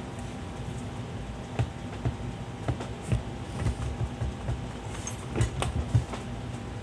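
Irregular knocks and clunks of a bicycle wheel being wrenched against a freewheel removal tool clamped in a vise, as a tight freewheel is broken loose from the hub. The knocks come more often about five seconds in.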